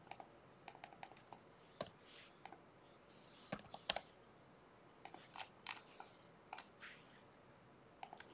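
Faint, irregular clicks of a computer mouse and keyboard while working in a drawing program, with a few brief soft rustles.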